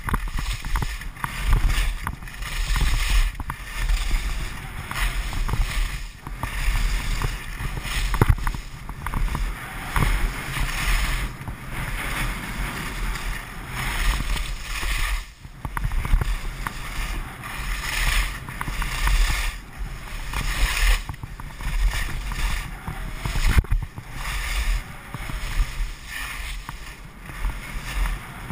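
Skis scraping and swishing over packed snow through a steady series of turns, the edge noise swelling about once a second, over a constant low rumble of wind and motion on the microphone.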